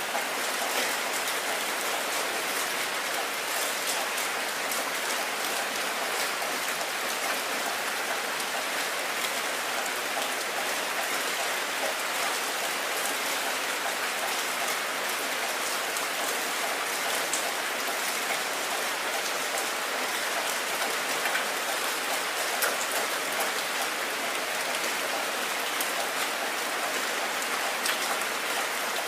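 Heavy rain falling steadily onto a wet surface: a dense, even hiss of drops with fine individual splashes, no letting up.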